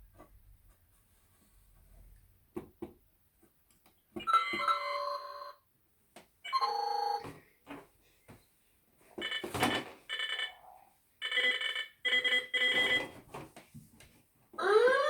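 Playmates Star Trek: The Next Generation Enterprise-D bridge toy playing its electronic sound effects: a few button clicks, then about five short bursts of electronic beeping tones in a row, each lasting a second or so.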